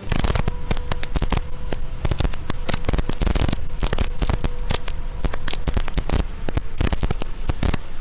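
Heavy rain pelting a moving vehicle's windshield and roof at highway speed, heard from inside the vehicle as a dense, irregular crackle of drop impacts over a faint steady hum.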